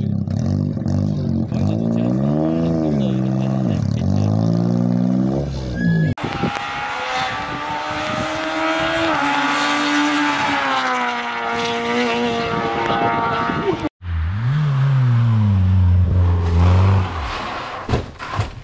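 Rally car engines at high revs in three quick clips, the pitch climbing and falling repeatedly with throttle and gear changes. The sound switches abruptly to a different car about six seconds in and again about fourteen seconds in.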